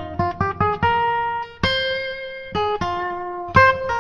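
Instrumental background music of quick plucked notes, slowing to a few long held notes about a second in before the quick notes return near the end.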